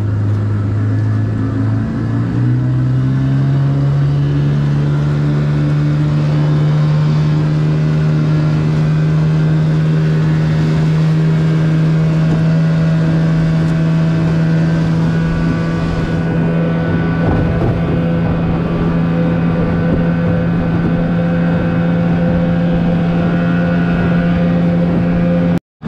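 Long-shaft outboard motor running under way; the throttle opens about two seconds in and the engine note rises, then holds steady. The sound cuts out briefly near the end.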